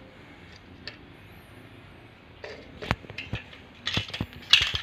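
A cat playing, batting and knocking a small hard object about: a run of sharp clicks and clatters that starts about halfway through.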